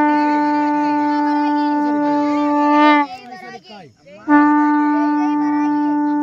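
Conch shell blown in long steady blasts on one unchanging note: one blast of about three seconds, a short break, then a second blast starting about four seconds in.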